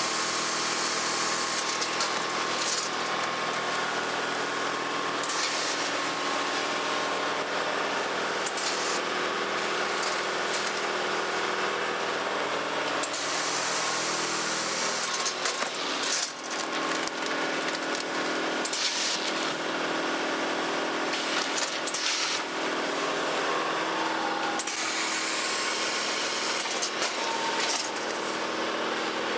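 Automatic packing machine filling washing powder into handle bags, running with a steady mechanical hum and short hissing bursts every few seconds.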